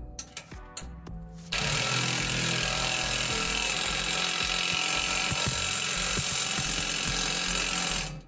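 Cordless drill/driver running steadily for about six seconds, driving in a bolt on an exhaust pipe flange. It starts abruptly and cuts off just before the end.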